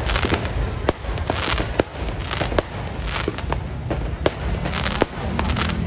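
Aerial fireworks display: sharp bangs of bursting shells about once a second, with patches of crackling between them over a steady low rumble.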